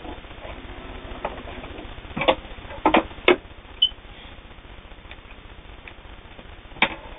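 A few scattered sharp clicks and knocks from handling at the sewing machine and the folded denim, over a low steady background hum; the machine is not running.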